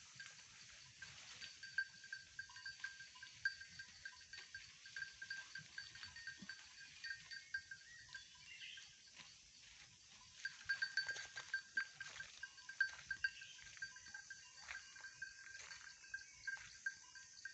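Goats feeding in forest undergrowth: scattered short rustles and snaps, busier about ten seconds in, over a steady, pulsing high drone.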